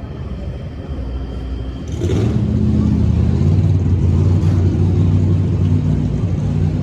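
Engine catches with a sudden burst about two seconds in, then keeps running with a steady low rumble.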